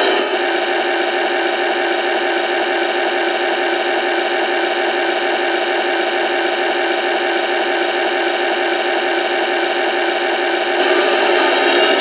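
MRC Synchro Sound 750 DCC sound unit playing its locomotive engine sound through its small speaker as the throttle is stepped up. It is a loud, steady, harsh hash of noise with no bass, and it gets louder about eleven seconds in. The owner calls it bizarre and too loud.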